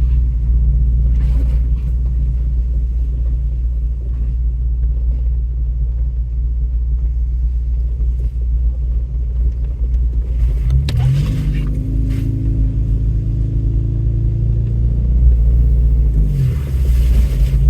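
Off-road vehicle's engine running with a steady low rumble while driving the trail. About eleven seconds in it revs up, the pitch climbs and holds higher for several seconds, then it drops back near the end.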